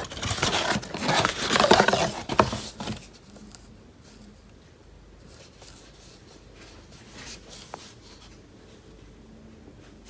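A plastic mailer bag being torn and crinkled open by hand: loud crackling and ripping for about three seconds, then only faint rustling and handling.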